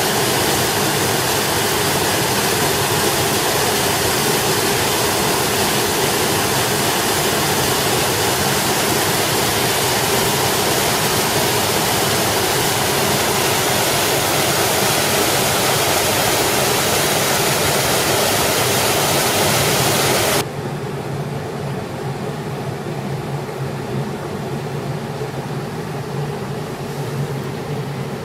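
Waterfall and rushing stream water making a steady, loud hiss. About twenty seconds in it cuts abruptly to a quieter, duller rushing noise.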